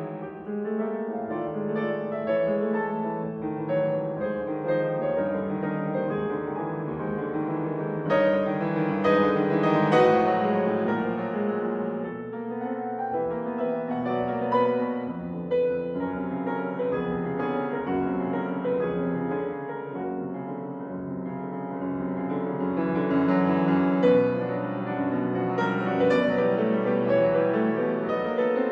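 Background piano music: a gentle run of piano notes.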